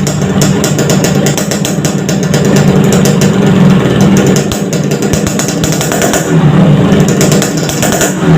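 Yamaha RX-King's single-cylinder two-stroke engine running loud through a hollowed-out (bobok) exhaust, giving the rapid, crisp, growling note its builder calls "garing ngorok".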